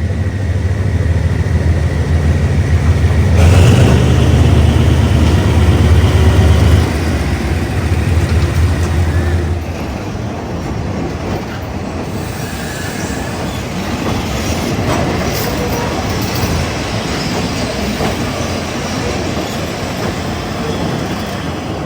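Train on the Burma–Thailand Railway passing close by: a heavy engine drone is loudest in the first several seconds and falls away about ten seconds in, leaving the steady rattle of the carriages rolling past on the track.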